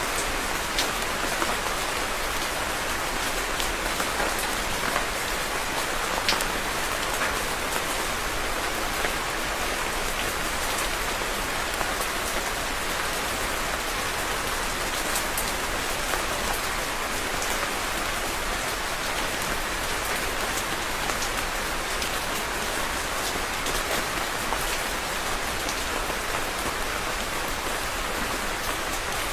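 Steady rain falling on a surface, a dense even hiss with scattered individual drops ticking through it.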